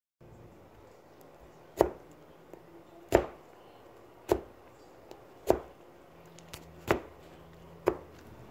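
Kitchen knife tip stabbed repeatedly through raw pork belly skin, knocking on the cutting board six times, about once a second, starting about two seconds in. The skin is being pricked so it turns crisp when roasted.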